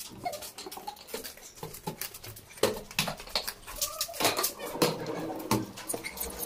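Footsteps and knocks as a hard-shell trolley suitcase is moved and carried, with a run of sharp bumps from a couple of seconds in, roughly one every second or less.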